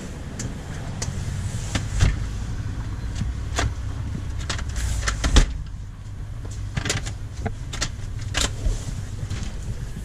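A front door pulled shut with a knock about five seconds in, after a few lighter knocks, then a string of light clicks as the buttons of an electronic keypad deadbolt are pressed to lock it. A steady low rumble sits under the first half.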